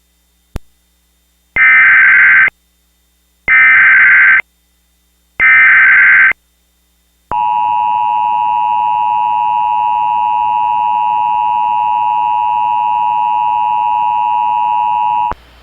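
Emergency Alert System SAME header: three short bursts of warbling data tones, each about a second long and about two seconds apart. Then comes the steady, shrill EAS attention signal, held for about eight seconds before it cuts off.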